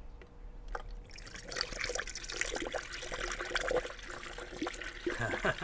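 Coolant poured from a plastic jug into a plastic funnel on a car's coolant filler, starting about a second in, topping up a cooling system that is low on coolant.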